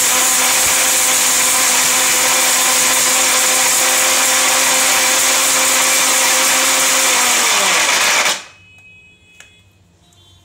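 Philips HL7699 750-watt mixer grinder running steadily, grinding dry coconut pieces in its steel jar. About eight seconds in it is switched off: the motor winds down with a falling pitch and stops.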